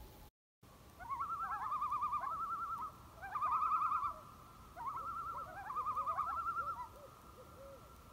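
Common loon tremolo: a rapidly wavering, laughing call repeated in four phrases, with a fainter, lower wavering call beneath it.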